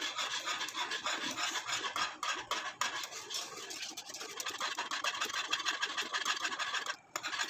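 Metal utensil scraping and rubbing against the inside of a pot in quick repeated strokes as it stirs boiling jelly powder mix, pausing briefly near the end. The mix is being stirred continuously so that it thickens.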